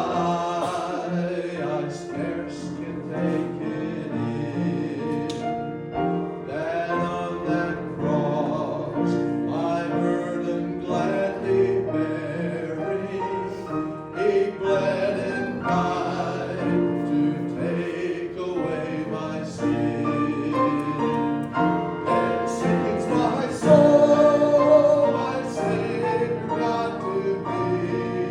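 Singing with musical accompaniment: a continuous sung medley with held, wavering notes.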